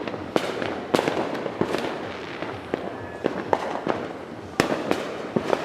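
Fireworks and firecrackers going off all around: irregular sharp bangs, some close together, over a continuous wash of noise from more distant explosions.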